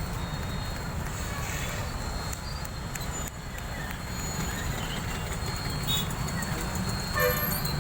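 Heavy road traffic in the rain: a steady low rumble of engines and tyres on a wet road, with a brief higher-pitched sound near the end.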